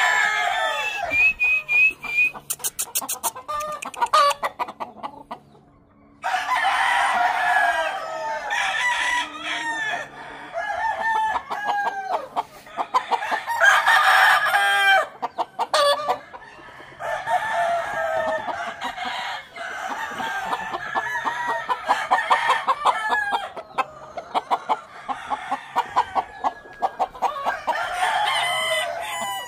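A yard full of chickens: several roosters crow over one another while hens cluck, almost without a break, with a brief lull about six seconds in.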